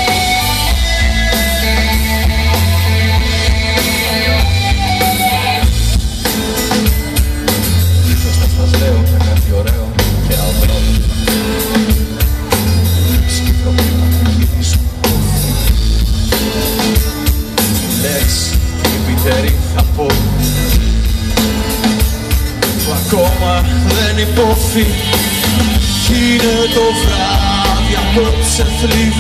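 Live rock band playing through the PA: a drum kit with a heavy bass drum and electric guitars, loud and unbroken.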